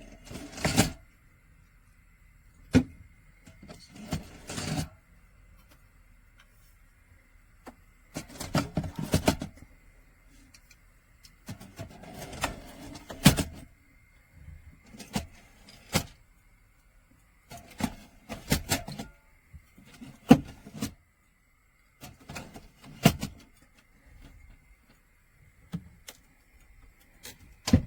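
Handling noises from a plastic fridge can dispenser and drink cans being moved about: scattered knocks, clicks and rustling in irregular bursts, with a faint steady high tone underneath.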